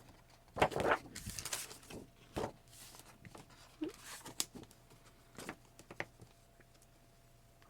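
Handling of paper craft pages on a work table: a papery rustle about half a second in, then a scatter of light taps and small knocks as the pages are pressed together.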